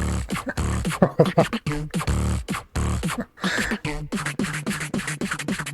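Live beatboxing: a fast, even rhythm of mouth-made clicks and snares over deep bass booms, with pitched sweeping sounds mixed in.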